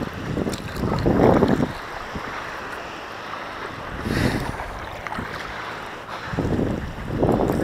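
Wind buffeting the microphone in three rough gusts, about a second in, about four seconds in and near the end, over a low steady wash of shallow sea water.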